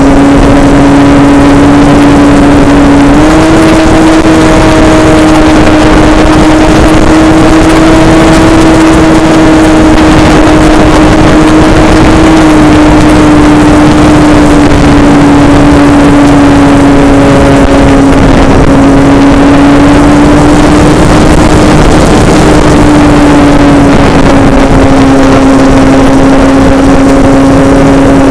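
Model airplane's motor and propeller running steadily in flight, heard from on board under heavy wind noise. The pitch steps up slightly a few seconds in, then eases lower about halfway through and again near the end.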